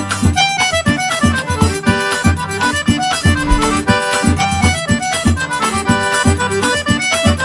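Background music led by an accordion, with a steady, quick beat.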